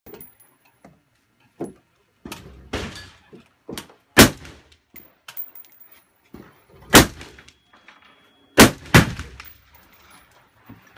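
Rifle shots on a shooting range: four loud shots, about four and seven seconds in and then two less than half a second apart near the end, each with a ringing tail. Fainter shots come from other shooters in between.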